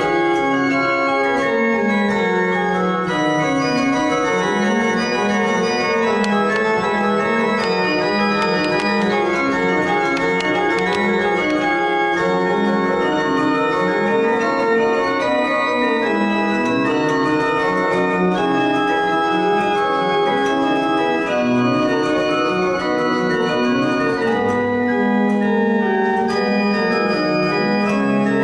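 Bonifazi pipe organ being played, with several lines of notes moving together over held tones at an even loudness throughout.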